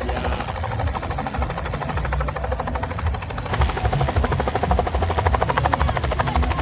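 Helicopter main rotor chopping in a fast, even beat over a low engine rumble as the helicopter hovers low and sets down. The chop grows louder about halfway through.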